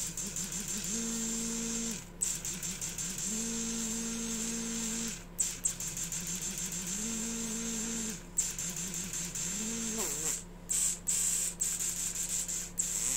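Warhead brushless airsoft motor, hand-held and powered from a 7.4 V battery, test-run free with no load in about four short bursts. Each burst spins up with a rising whine to a steady hum, holds for a second or two and stops, over a steady high-pitched whine. The owner puts an extra noise down to the insulation tip and judges it okay.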